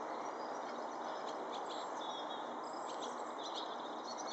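Small birds chirping and twittering with many short, scattered high notes, over a steady background hiss.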